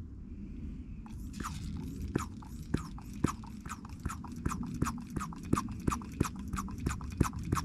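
Hand-operated brake bleeding pump being worked in quick, even strokes, about three to four a second, starting about a second in, as the old fluid is drawn out through the bleeder.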